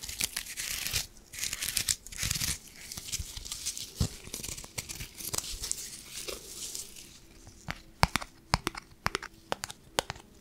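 Crinkly plastic packaging rustling and crackling close to the microphone. From about seven seconds in, it gives way to a run of sharp, separate taps and clicks as a small cardboard tag is handled and tapped.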